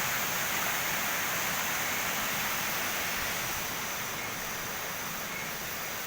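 Waterfall rushing: a steady, even noise that gets a little softer in the second half.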